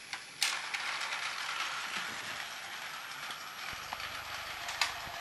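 A sharp plastic click, then the steady gear rattle and clatter of battery-powered Plarail toy trains running on plastic track, with another sharp click near the end.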